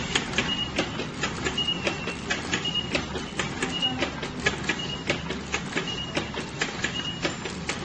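Automatic transformer core-assembling, taping and testing machine running. Its mechanisms make a quick, irregular run of clicks and clacks, with a short high beep about once a second.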